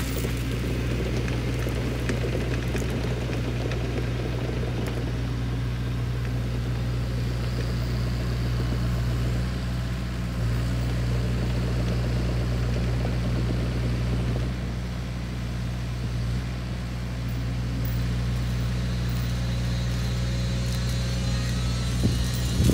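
Sany SY50U mini excavator's diesel engine running steadily under load while it drives a flail mulcher head, a constant low hum with a broad rushing noise over it.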